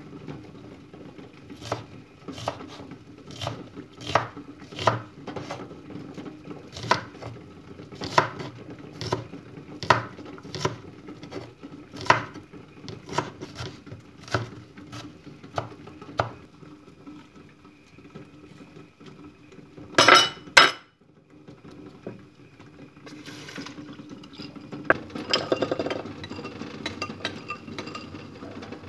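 Knife dicing an onion on a wooden cutting board: slow, even strokes that stop about halfway through. Two loud sharp clatters follow, then a metal spoon clinking in a ceramic bowl near the end.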